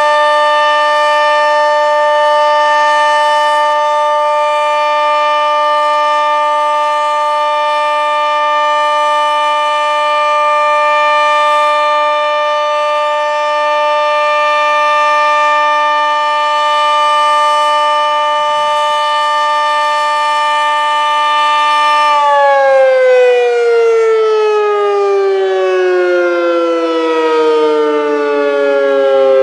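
Sentry 40V2T outdoor warning siren sounding its steady alert, a chord of several pitches held level. About 22 seconds in, the alert cycle ends: the siren shuts off and winds down, all its tones gliding down together.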